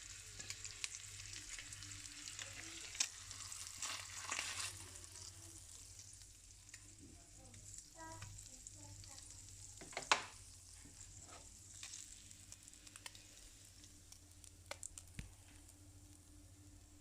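Trout fillets frying in butter and olive oil, a steady fine sizzle with scattered small crackles that eases after the first few seconds. One sharper click about ten seconds in.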